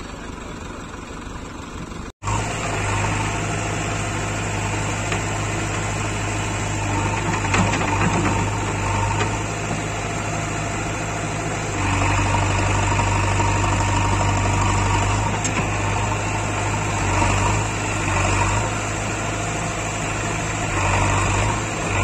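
Diesel engine of a JCB 3DX backhoe loader running steadily nearby, with the stuck tractor's engine behind it. The engine sound starts after a sudden short break about two seconds in and grows louder from about halfway through.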